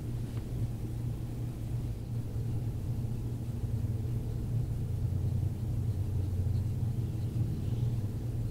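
Steady low hum or rumble in the room background, even throughout, with no other distinct sound standing out.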